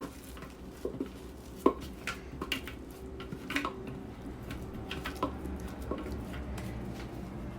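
Kitchen utensils and dishes clinking and knocking irregularly, over a faint steady hum.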